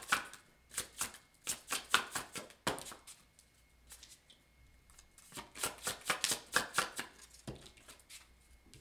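A deck of oracle cards being shuffled by hand: quick runs of riffling card clicks in two spells, with a pause of about two seconds between them.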